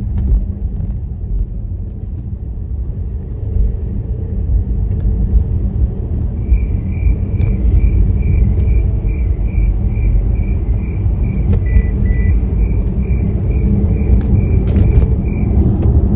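Car cabin road noise: a steady low rumble from the engine and tyres while driving. From about six seconds in a regular ticking sounds about twice a second until just before the end, with a short two-note beep partway through.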